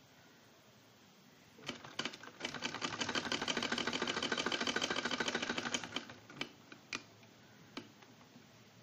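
Domestic sewing machine stitching: a few clicks, then about three and a half seconds of rapid, even clicking from the needle mechanism, slowing to a few single clicks as it stops.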